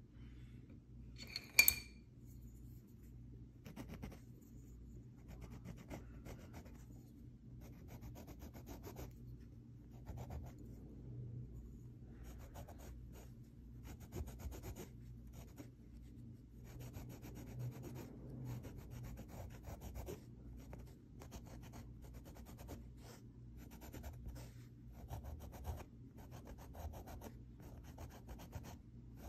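Pencil rubbing and scratching on cloth in many quick, short strokes. A sharp clink about a second and a half in.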